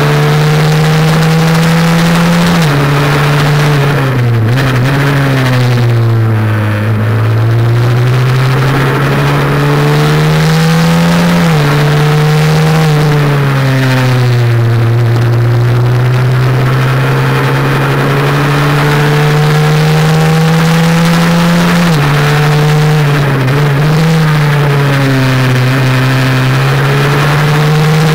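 Honda NSF100 race bike's small four-stroke single-cylinder engine at racing speed, revs climbing and falling through a lap: about three sudden drops in pitch at upshifts and slower falls when slowing for corners. A rush of wind noise runs underneath.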